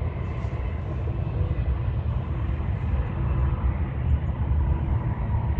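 Diesel locomotives of a BNSF freight train heard from afar: a steady low rumble with a faint, even whine above it.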